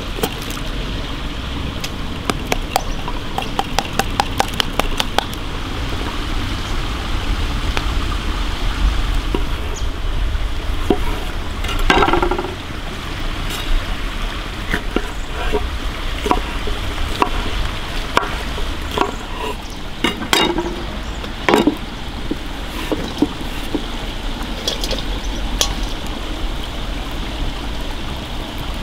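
Fresh bell peppers being torn open by hand, with crisp cracks and snaps, and a knife cutting on a wooden board, over the steady flow of a forest stream. A quick run of sharp clicks comes in the first few seconds, and a few louder knocks come around the middle.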